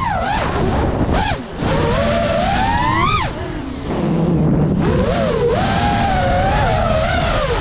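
Brushless motors and propellers of a 5-inch FPV quadcopter whining, the pitch climbing and falling with every throttle change, dropping off briefly about a second in and again around three and a half seconds in as the throttle is chopped. Wind rushes over the drone-mounted camera's microphone.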